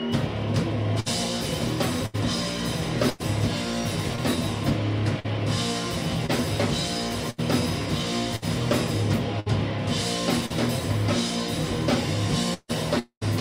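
Live rock band playing: electric guitar, bass and drum kit. Near the end the sound cuts out briefly a few times.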